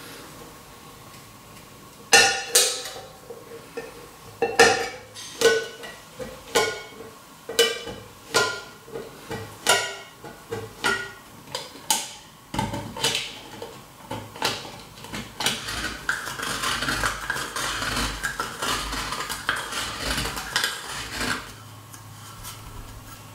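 Hand-held can opener cutting around the lid of a tin can. Sharp metallic clicks of the blade biting through the steel come about once a second, then give way to a quicker, continuous grating of metal that stops about two seconds before the end.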